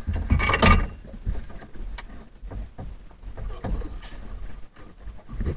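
Handling noise close to the microphone: a loud scraping rustle in the first second, then irregular knocks and rubbing as gear and clothing brush against it.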